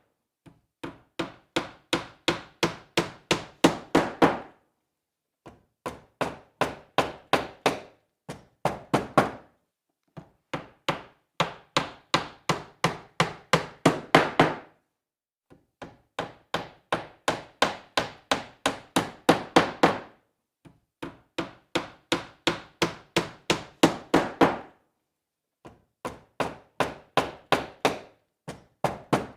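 Hammer driving nails into wood: quick strikes at about four a second, in runs of several seconds separated by short pauses. The blows grow louder through each run.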